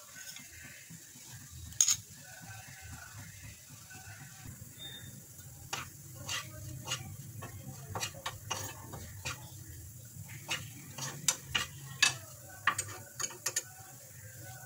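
Sabudana khichdi being stirred and tossed in a nonstick frying pan, with a faint steady sizzle. One sharp clink comes about 2 s in, and from about 6 s on a metal spoon scrapes and clinks against the pan many times in quick, irregular strokes.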